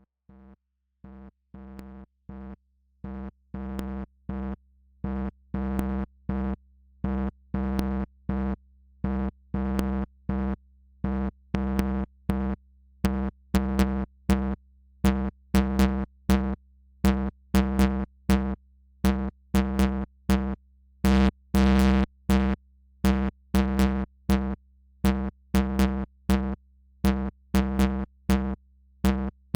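Software modular synthesizer (VCV Rack) playing a repeating sequence of short, clicky gated notes over a steady low drone. It fades in over the first few seconds, then the notes come faster and louder, about two to three a second.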